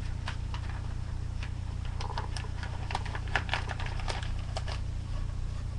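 A sheet of paper being rolled up tightly by hand, crinkling in a run of small, irregular clicks and crackles, over a steady low electrical hum.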